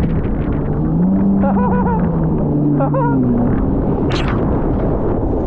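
Jet ski engine running under a heavy rush of wind and water; its pitch rises about a second in and drops again a little past the middle. Two short wavering higher tones come through around the middle, and a brief hiss comes about four seconds in.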